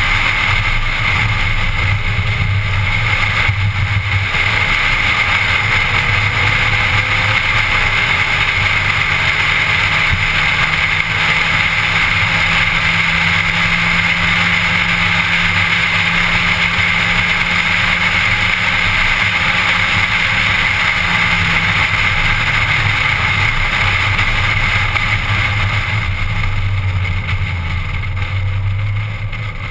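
Car driving at a steady pace, heard from inside the cabin: a low engine drone under continuous tyre and wind noise. A steady engine note holds for about ten seconds in the middle, and the sound eases slightly near the end.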